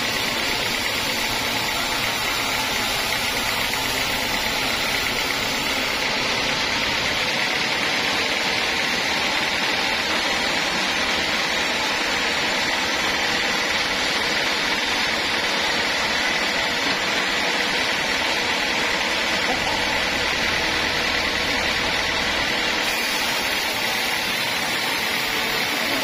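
Large sawmill band saw cutting lengthwise through a squared acacia hardwood beam: a steady, unbroken rasp of the blade in the wood with a constant high whine over it.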